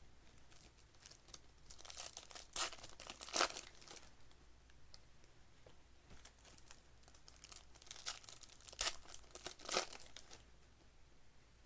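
Trading card pack wrappers being torn open and crinkled by hand, in two bursts of crackling about two seconds in and again about eight seconds in.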